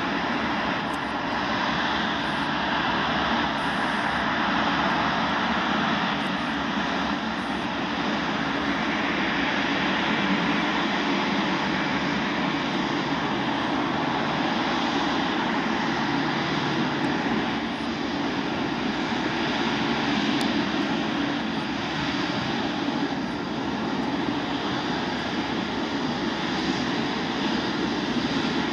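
The four Rolls-Royce Trent 500 turbofans of an Airbus A340-500 at low taxi thrust, giving a steady jet noise that holds even throughout.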